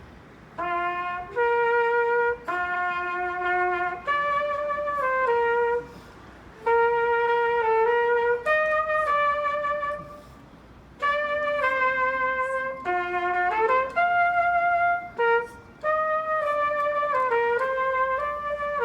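A solo wind instrument plays a slow melody, one held note at a time, with short breaks between phrases.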